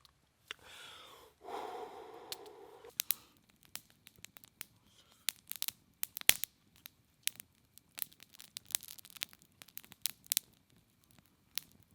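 A soft breathy sound near the start, then irregular sharp clicks and crackles, several a second, like rustling or crackling at close range.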